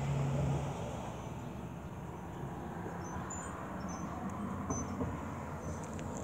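A road vehicle running on the street and fading away: a low engine hum stops under a second in, and the road noise slowly dies down. Faint short high chirps sound now and then.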